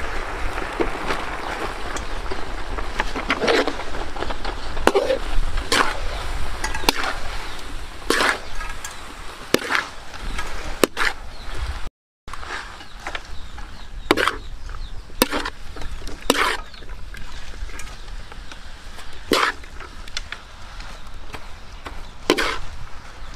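Metal spatula scraping and knocking against a steel wok as noodles are stir-fried in sauce, a sharp stroke every second or so. The sound cuts out briefly about halfway through.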